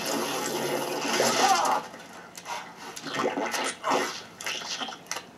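Film sound effects heard off a computer's speakers: a rushing, water-like whoosh for almost two seconds, then it drops away into quieter scattered knocks and clatter.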